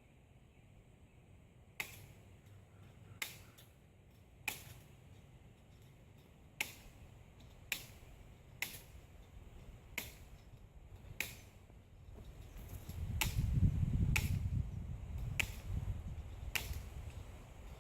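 A hand tool working wire fencing: a dozen sharp clicks, one about every second. A low rumble rises and fades in the second half.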